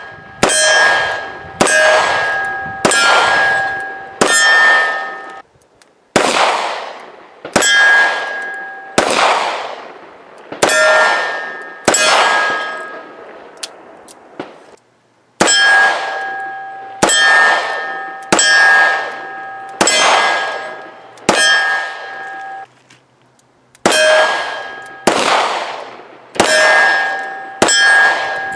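Taurus 85 Ultra Lite .38 Special revolver firing at steel targets: about twenty shots, roughly a second apart, in strings of five with short pauses between them. Each hit sets a steel plate ringing with a clear tone that dies away over about a second.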